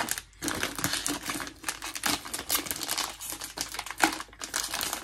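Metallized plastic potato chip bag (Rap Snacks wavy chips) crinkling and crackling continuously as it is crumpled and folded in the hands.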